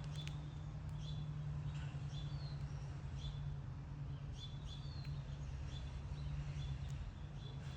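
A small bird chirping over and over, short high chirps at about one or two a second, over a steady low hum.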